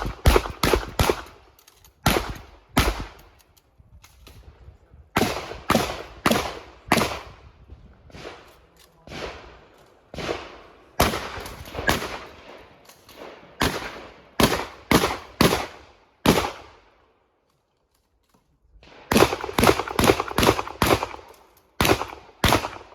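Shotgun firing a long string of shots in quick, uneven clusters, each shot with a short echoing tail. There is a break of about two seconds near the end, and then another fast run of shots.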